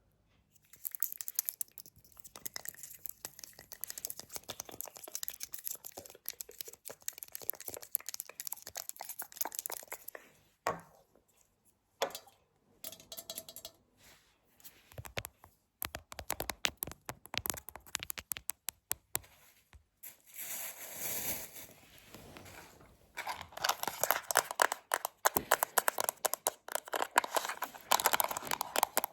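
Close-miked ASMR tapping and crinkling: a dense stream of quick, light clicks and knocks with stretches of crinkly rustling, becoming faster and louder near the end.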